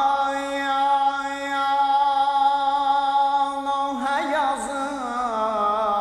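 A man singing a Shia devotional eulogy (mədhiyyə) solo in Azerbaijani. He holds one long note with a slight waver, then breaks into an ornamented melody that bends up and down about four seconds in.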